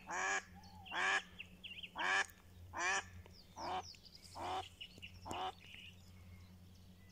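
Live decoy hen duck on the water quacking, seven loud quacks about one every 0.8 seconds, fading somewhat over the last three. It is calling to draw wild drakes in to the hunter.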